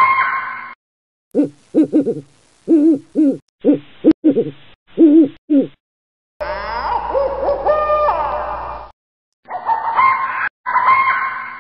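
Owl calls: a run of short, low hoots, mostly in quick pairs, a longer warbling call with gliding pitch in the middle, and harsher, higher calls at the start and near the end. Each call starts and stops abruptly.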